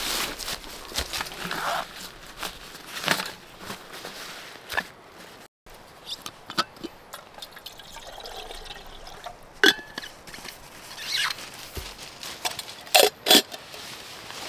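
Water being poured into a cooking pot, with scattered clinks and knocks; two sharp knocks close together near the end.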